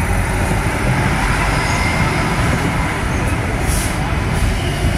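Diesel railcar of the 3000/3100 class passing close by at low speed, with a steady mix of engine and wheel-on-rail noise. A short high hiss comes about three-quarters of the way through.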